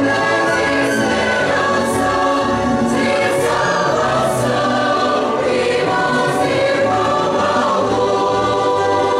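A mixed choir of women's and men's voices singing a hymn together, sustained and continuous.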